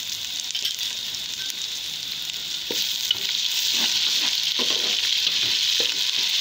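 Sliced onions and green chillies sizzling in hot oil in a metal pot. A spatula is stirring and scraping against the pot in a series of short strokes through the second half, and the sizzle grows louder about halfway through.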